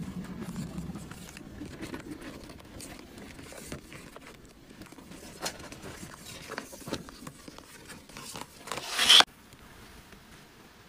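Paper cards and envelopes handled and slid in and out of a plastic storage box: light taps, clicks and rustles. Near the end a louder swishing rustle builds and cuts off suddenly.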